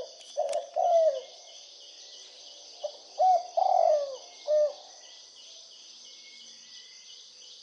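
Spotted dove cooing: a short phrase of three low, falling coos, then after a pause a second phrase of four. A steady, high-pitched insect chirring runs underneath.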